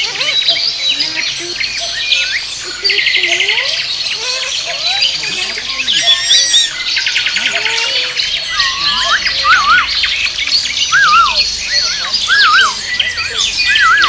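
Alexandrine parakeet calling and chattering among other chirping birds: a busy mix of short chirps, buzzy trills and rattles, with a run of repeated wavy whistled calls in the second half.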